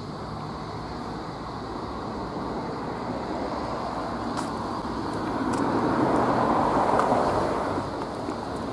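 A road vehicle going by on a street, its noise swelling about six seconds in and easing off near the end.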